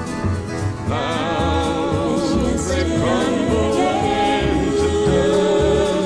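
Country song recording playing: a melody line with strong vibrato enters about a second in, over a regular bass beat.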